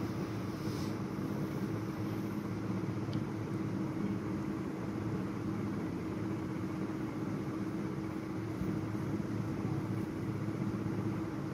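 Steady low machine hum with several held tones, unchanging throughout.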